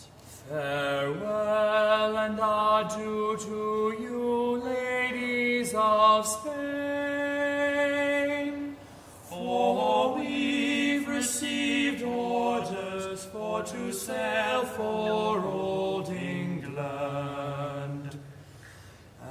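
Background music of slow chanting voices holding long, sustained notes, with a short break about nine seconds in.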